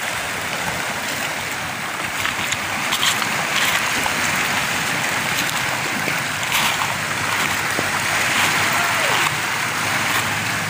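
Small sea waves washing in and breaking among shoreline rocks: a steady rush of surf, with a few splashes as someone wades through the shallows.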